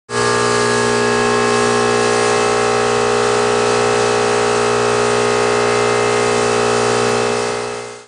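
Durovac PowerLift 40-horsepower portable industrial vacuum running steadily, a loud even hum over a hiss, fading out near the end.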